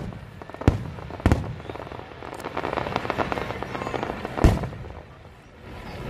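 Aerial fireworks bursting: separate booms about a second in and again just after, then a dense crackling spell, and the loudest boom near the end.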